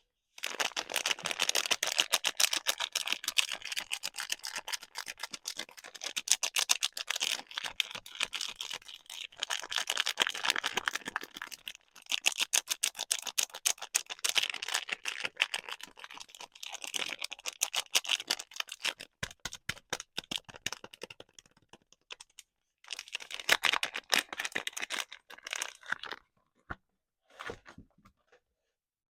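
Packaging being unwrapped by hand: rapid crackly crinkling and rustling in long stretches, with short pauses and a few separate ticks and taps near the end.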